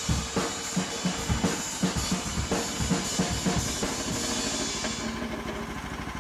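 Background music: a drum-led track with a steady beat, its treble dropping away about five seconds in.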